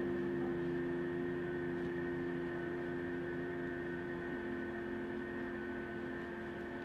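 Steady electrical or mechanical hum made of several constant tones, low and high, easing off slightly in level.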